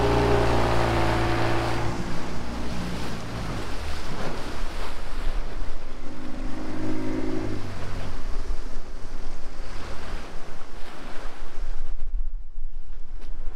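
Inflatable dinghy's outboard motor running under way through chop, with water rushing and splashing along the hull and wind buffeting the microphone. The motor's hum swells in the first few seconds and again about six seconds in.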